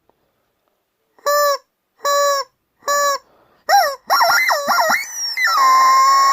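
Rubber chicken squeezed: three short, even squawks, then quick wavering squeals, then a long held squeal that drops in pitch and then stays steady.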